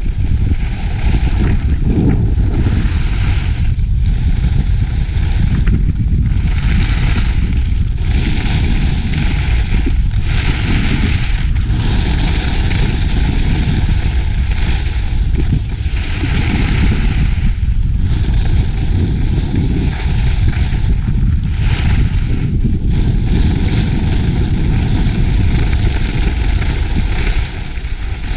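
Wind buffeting a GoPro Hero 5 Black's microphone at skiing speed, a heavy rumble, with the hiss of skis on snow swelling and fading every second or two.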